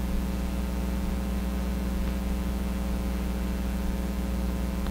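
Room tone: a steady low electrical hum with a faint buzz and hiss, unchanging throughout.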